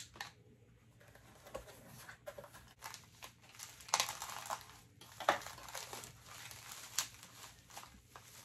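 Thin plastic bag crinkling and rustling as hands unwrap and squeeze it, in irregular crackles with the sharpest ones about four, five and seven seconds in. A faint steady electrical hum runs underneath.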